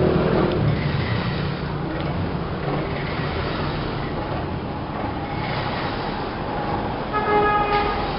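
Plastic bag cutting and crushing machine running steadily, a low hum under a rough mechanical noise. A brief pitched tone sounds about seven seconds in.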